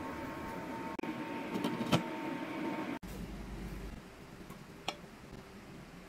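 Kitchen sounds at a stainless-steel pot of chicken on an electric cooktop: a steady hum with a thin high whine, and one sharp metal clink about two seconds in. After a cut the hum is gone, and metal tongs give a single click near the end.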